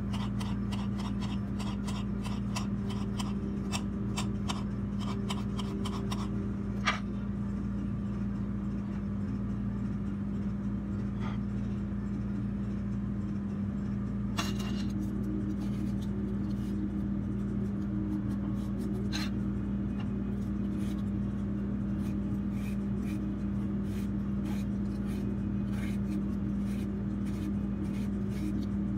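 A kitchen knife tapping on a hard cutting board as peppers and onions are chopped: quick runs of taps for the first several seconds, one sharper knock just before 7 s, then sparser knocks. A steady low hum runs underneath, and near the end a peeler scrapes a carrot.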